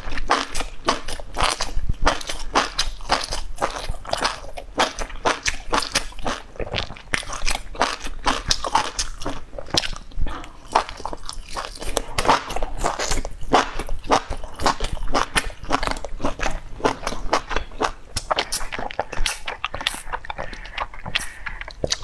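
A person chewing and biting spicy pork and enoki mushrooms, a quick irregular stream of wet crunches and mouth clicks.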